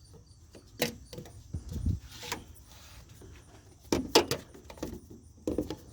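Scattered light clicks and knocks of plastic parts being handled and fitted as the windshield washer fluid reservoir tube is put back into place, with a small cluster of them near the end.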